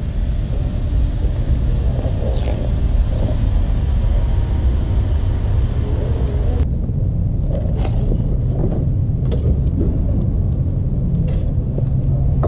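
Kawasaki Concours 14's inline-four engine idling steadily after an oil change, run to circulate the fresh oil through the engine.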